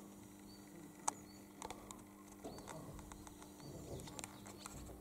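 Faint rural ambience: small birds giving short high chirps now and then over a steady low hum, with a few soft clicks.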